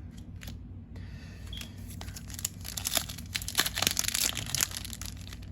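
Foil trading-card booster pack wrapper crinkling as it is handled, with sparse crackles at first that grow into dense crinkling about halfway through.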